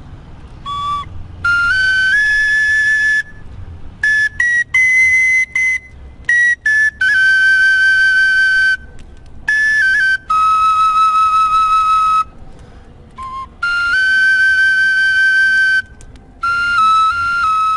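Solo flute playing a slow melody: phrases of long held high notes, some with short quick notes between, separated by brief pauses.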